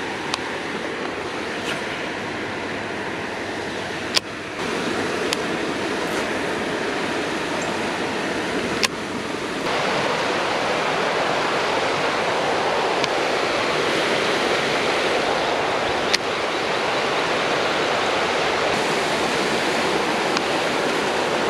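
Water rushing over a river spillway: a steady, dense rushing noise that steps up louder about four seconds in and again about ten seconds in, with a few sharp clicks.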